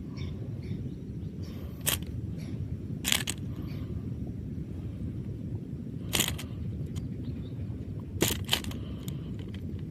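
Fishing tackle being handled while a small catch is unhooked from a casting lure: about five sharp clicks and knocks, two of them close together near the end, over a steady low rumble of wind or surf.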